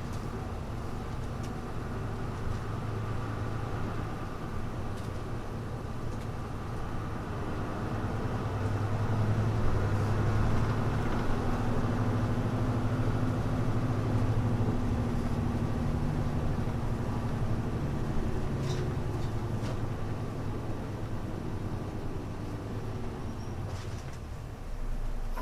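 Diesel engine of a 1991–92 Hino Blue Ribbon U-HU2MLAA city bus, heard from inside while the bus is driving, with the muffled engine note typical of buses of that era. The engine grows louder about a third of the way in, holds, then eases off near the end. A few short rattles come in between.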